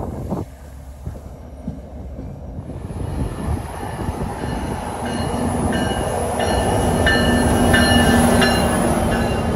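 A commuter train rumbles past. Then an NJ Transit PL42AC diesel locomotive comes closer and passes, its engine drone rising. Wheels click over the rails and a high wheel squeal builds in the middle and late part.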